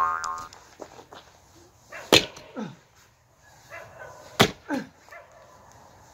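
An axe strikes firewood twice, about two seconds apart. A short falling cry follows each strike.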